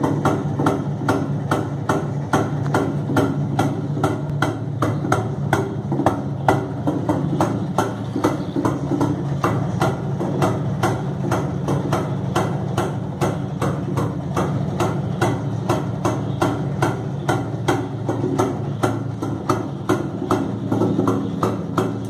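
Jawa motorcycle's two-stroke single-cylinder engine idling steadily, with a sharp regular tick about three times a second over the running note.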